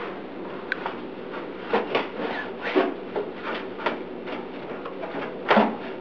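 A damp cloth wiping and scrubbing the inside of a microwave oven: irregular rubbing strokes, a few of them louder scrapes.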